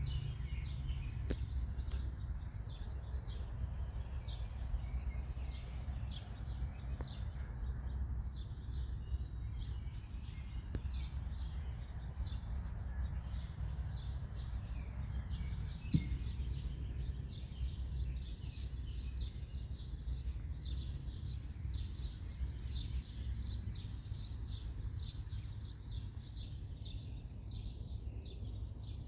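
Birds chirping and singing in a dense, continuous chorus of short high calls, over a steady low rumble. A single sharp tap about halfway through.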